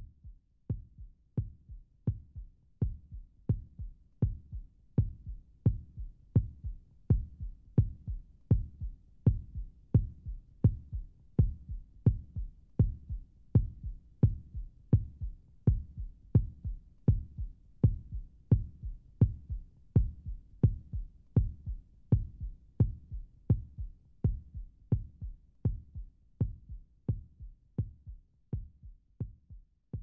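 Outro background track of a steady pulsing beat: low thumps in close pairs like a heartbeat, each with a sharp click, repeating evenly.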